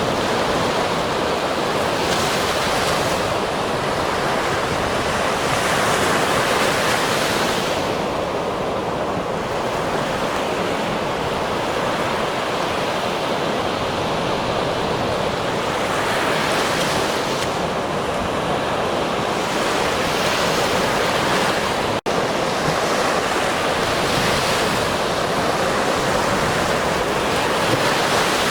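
Ocean surf: a continuous wash of waves breaking on a shore, swelling brighter every several seconds as each wave breaks. There is a momentary dropout about three-quarters of the way through.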